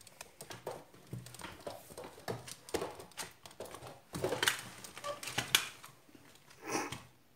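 Handling noise: scattered clicks, taps and rustles of things being moved about, with two short, louder bursts about four and a half and seven seconds in.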